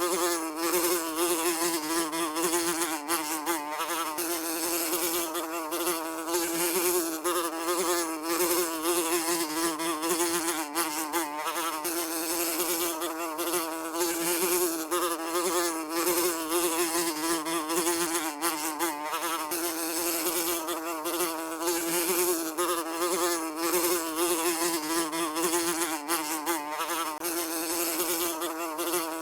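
A housefly buzzing continuously in flight, its wingbeat hum steady in pitch with a slight waver as it moves about.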